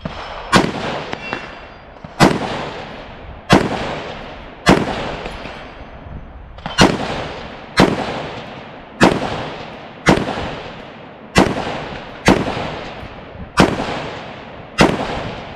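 AR-15-style semi-automatic rifle fired twelve times in slow, deliberate succession, roughly one shot every second, each shot followed by a long echoing tail.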